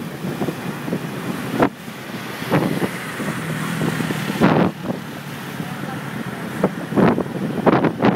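Wind buffeting the microphone in repeated gusts over the steady noise of road traffic, recorded from a moving vehicle.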